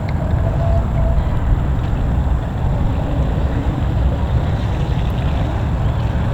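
Steady low rumble of a boat engine running at the ramp, mixed with wind buffeting the microphone.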